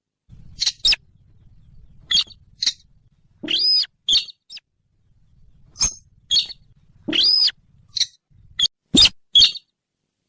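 Sintar bird calls played as a hunting lure: a run of short, sharp notes, some sliding up and back down in pitch, coming irregularly about once or twice a second with gaps.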